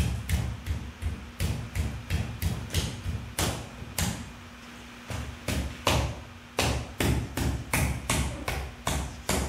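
Repeated palm thumps on a classic car windshield, two or three a second with a short pause midway, as the glass is pushed and patted down to seat it in its rubber gasket and sealant.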